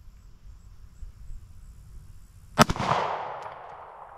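A single shot from a Taurus G3C 9mm pistol firing a 115-grain full metal jacket round, about two and a half seconds in, followed by a rolling echo that fades over about a second and a half.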